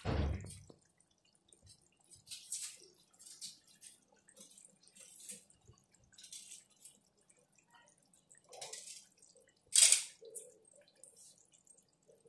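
Thick mutton curry gravy simmering in a kadhai, bubbling and popping in irregular little bursts, with a louder pop or spatter about ten seconds in. A dull thump right at the start.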